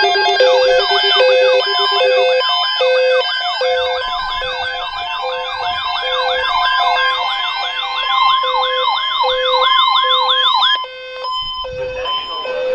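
Several weather alert radios sounding their alarms together for a new alert. Fast, repeating siren-like warbles play over a steady alert tone and regular beeps about once a second. The warbling cuts off about a second before the end, leaving the beeps.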